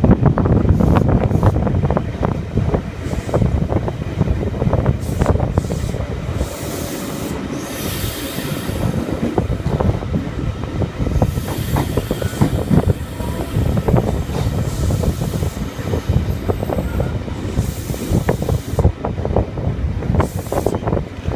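V-set electric double-deck train carriage running along the line, heard at an open side window: wheels knocking and clattering over the rails over a steady rumble and rush of air, with stretches of higher hiss.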